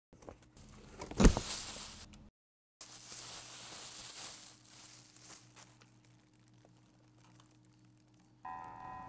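Sound effects of a cardboard box being slashed and torn open, with one sharp, loud hit about a second in, then a rustling spill of packing peanuts that fades away. Near the end an electronic tone begins.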